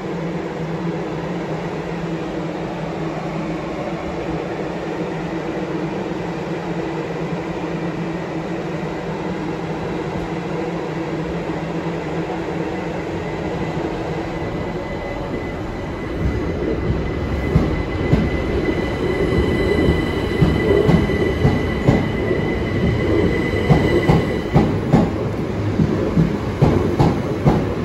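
Southeastern Class 377 electric multiple unit moving off, a steady hum with a high, level whine. A little over halfway through it gets louder, with the wheels knocking irregularly over the rail joints.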